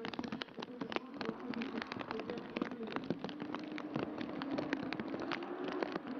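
Two drag cars' engines drone at a held pitch on a wet start line, rising slightly in the second half, under a dense, irregular crackling.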